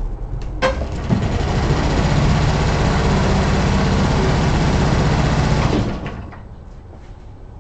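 Handheld electric starter cranking a Shindaiwa four-stroke blower engine through the propeller spinner, a steady whirring drone starting with a click under a second in and stopping about six seconds in. The engine does not catch.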